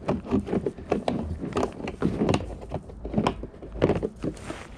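Irregular knocks, clicks and clatter of objects being handled, over a low rumble.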